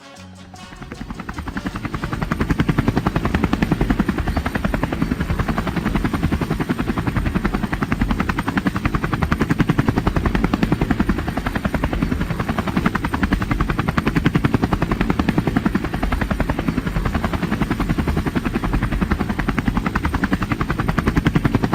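Helicopter rotor chopping steadily with a fast, even beat, building up over the first couple of seconds.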